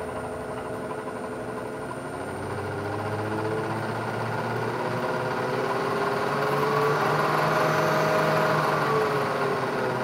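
Bridgeport milling machine spindle running, with its whine rising in pitch and getting louder as the spindle speed is turned up. It peaks about three quarters of the way through, then falls as the speed is turned back down near the end.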